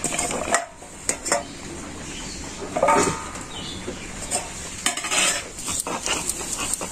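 Sharp clinks and knocks of a steel bowl and spoon as boiled jackfruit seeds are tipped out onto a stone grinding slab, with a brief metallic ring about three seconds in.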